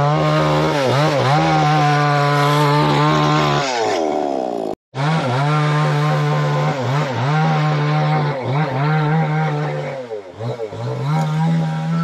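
Two-stroke chainsaw running steadily, its pitch dipping briefly several times as it takes load in the wood. The sound breaks off for a moment about five seconds in and then resumes.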